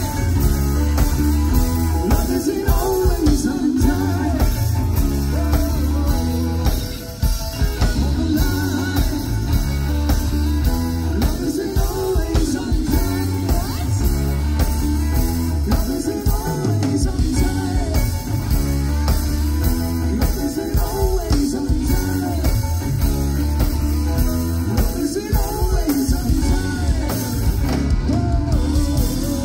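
Live yacht rock band playing a song on electric guitar, bass guitar and drum kit, with a singer.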